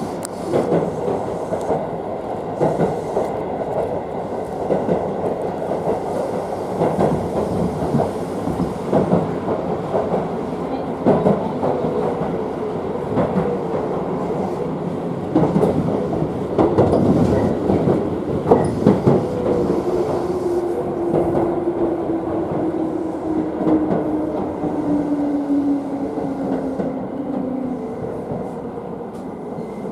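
Tobu Skytree Line electric train heard from inside the car, running with wheels clacking over rail joints. About two-thirds through, a steady whine falls in pitch and fades as the train slows for Tokyo Skytree station.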